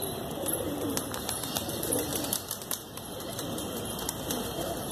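Desi high-flyer pigeons cooing, several overlapping low calls at once, with a few light clicks.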